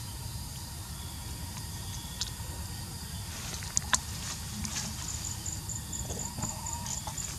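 Forest ambience: a steady low rumble with a few sharp clicks, the loudest two close together about four seconds in. From about five seconds in there is a faint high chirp, pulsing about four times a second.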